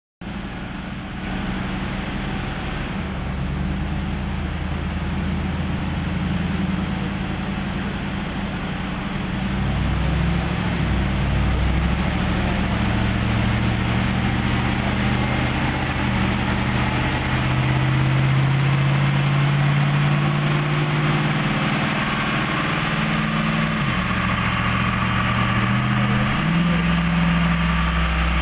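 Supercharged 5.4-litre V8 of a Ford F-150 SVT Lightning running on a chassis dyno at low, fairly steady engine speed. Its pitch steps up about a third of the way in, drops briefly near the end and then rises again.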